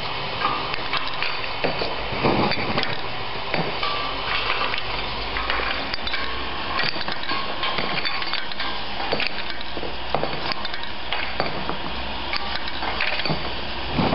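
Automated feeder conveyor for wine corks running, with a steady low hum under many irregular light clicks and knocks as the corks clatter along the belt and guide rails.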